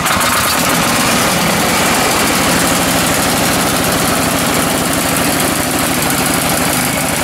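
Ariens Deluxe 30 snowblower's 306cc single-cylinder engine running steadily on full choke, just after being pull-started from cold.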